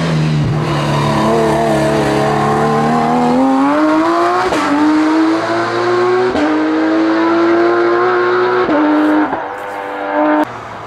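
Porsche 911 race car's flat-six engine pulling hard uphill, its pitch climbing, with quick upshifts about four and a half and six and a half seconds in. The engine then holds a steady note before dropping away and cutting off abruptly near the end.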